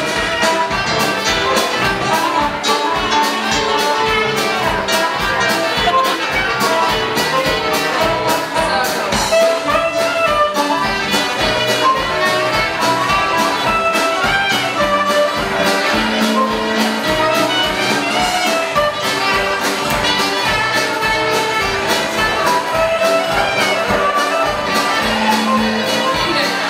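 Live folk dance band playing a tune for contra dancing, with saxophones and brass over a steady, even beat.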